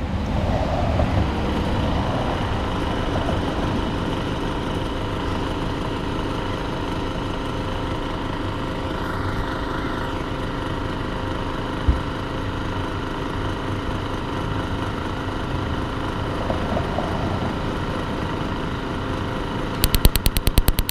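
Atwood Hydroflame 8520 RV furnace running through its ignition cycle: the blower motor runs steadily. Near the end the new electronic igniter starts sparking in a rapid, even ticking.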